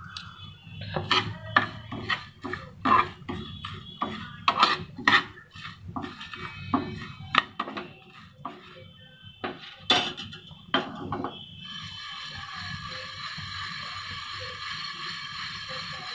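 Spoon stirring whole spices (coriander, cumin, ajwain and fennel seeds) as they dry-roast in a frying pan: repeated clinks and scrapes against the pan. From about twelve seconds in, the clinks give way to a steady hiss.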